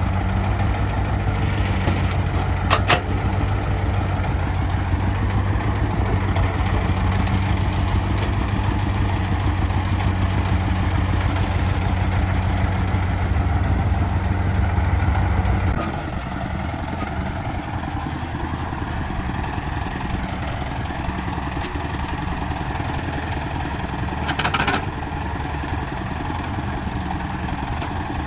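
Diesel engine running steadily with a low hum, stepping down to a quieter, lighter running note about halfway through. Two short sharp knocks stand out, one near the start and one near the end.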